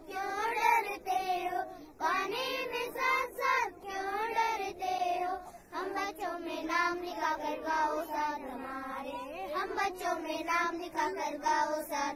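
Children singing a song in Hindi, in sung phrases with short breaths between lines.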